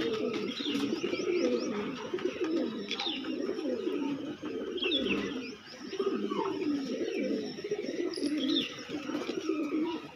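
Several domestic pigeons cooing at once in a continuous overlapping murmur, with short high chirps scattered through it.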